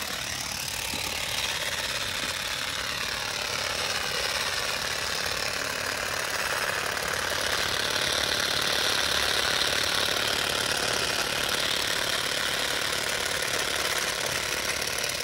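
Parkside PGSA 4 A2 cordless grass and shrub shears running steadily while trimming thuja foliage, the reciprocating blades making a continuous chattering buzz. It grows a little louder and brighter about halfway through.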